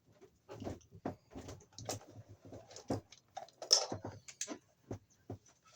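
Irregular clicks, taps and scrapes of stiff electrical wires and a push-in wire connector being handled and worked to free a 14-gauge wire, with one louder click a little past the middle.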